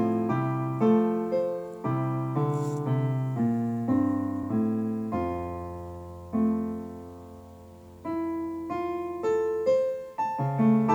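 Background solo piano music: a slow melody of single notes and chords, each struck note fading away, with a long low note held in the middle.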